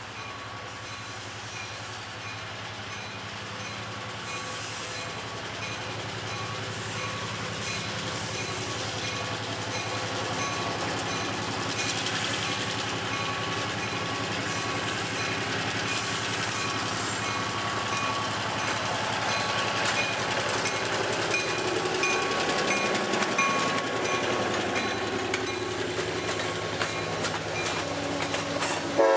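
An EMD SW1200 diesel switcher locomotive's engine working as it pulls a short freight train toward and past the listener, growing steadily louder. Near the end, wheels click over the rail joints as the cars go by.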